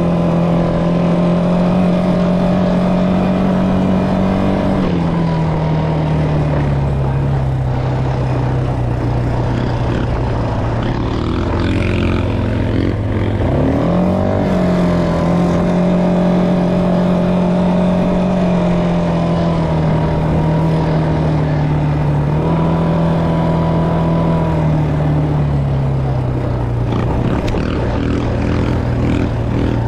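ATV (quad bike) engine running under way, heard from the rider's seat. Its pitch drops about five seconds in, sinks lower near the middle before revving back up, and eases down again in the last third.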